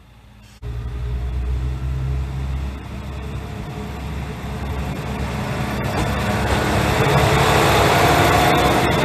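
Single-car diesel railcar of the Mizushima Rinkai Railway approaching and passing close by: a low diesel engine note at first, then wheel and rail rumble that grows louder as the car goes past, with a few sharp clicks.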